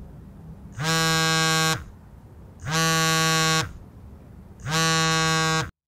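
Mobile phone vibrating on the ground with an incoming call: three buzzes about a second long, each sliding up as it starts and down as it stops, about two seconds apart. The sound cuts off suddenly near the end.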